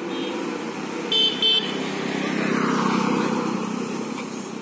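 Two short car horn toots about a second in, over a car engine running steadily. The engine sound swells and then falls away over the next couple of seconds.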